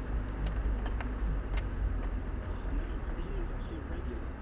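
Nissan Terrano 4x4 running at low speed along a rough woodland dirt track, heard from inside the cabin as a steady low engine and drivetrain rumble, with a few light knocks or rattles from the body in the first two seconds.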